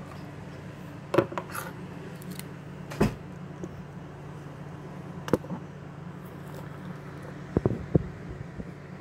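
Hands handling cardboard boxes and packaging close to the microphone: a few separate sharp knocks and taps, then a quick cluster of three near the end, over a steady low hum.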